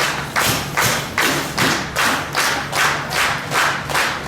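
Wrestling crowd clapping in unison, a steady even beat of about two and a half claps a second.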